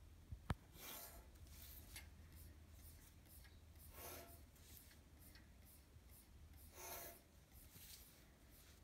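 Pencil drawing lines on paper along a plastic ruler: a string of faint, scratchy strokes, each under a second long. A single sharp tap about half a second in.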